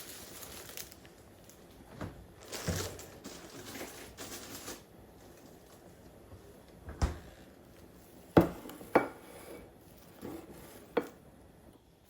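Rustling and handling noise, then a few separate sharp knocks and clinks like objects being set down, the loudest a pair a little past the middle.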